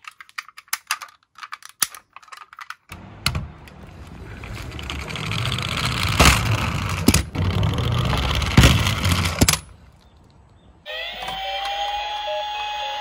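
Plastic and die-cast toy cars clicking and clattering as they are handled in a box, then a toy police van rolling down a sloping wooden board with a steady rumble and sharp clicks for about six seconds. About two seconds before the end, a steady electronic tone starts up.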